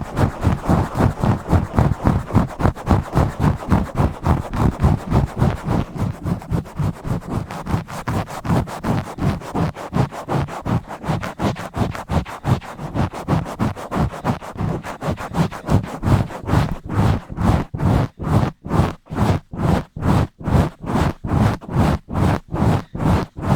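Fast, rough scratching and rubbing directly on a microphone, a rapid run of strokes with a heavy low rumble in each. About two-thirds of the way through the strokes separate out, roughly three a second with brief gaps between them.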